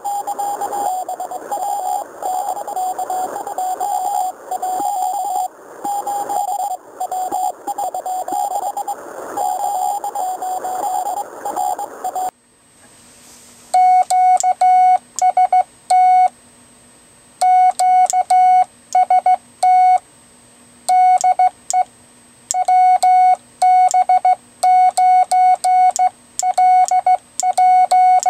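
For about the first twelve seconds, a Morse code tone keyed in dots and dashes through a steady hiss of noise. Then it cuts to clean, loud Morse code sidetone beeps, hand-keyed on a semiautomatic bug key in quick strings of dits with longer dahs and short pauses, sending 'DE WB9L'.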